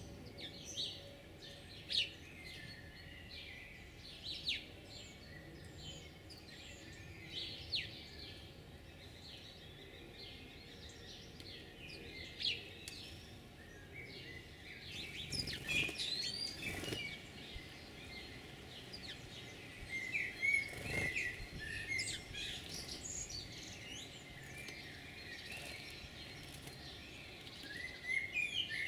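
Small songbirds chirping and singing, short calls and trills scattered throughout and busier in the second half, with a couple of brief soft thumps around the middle.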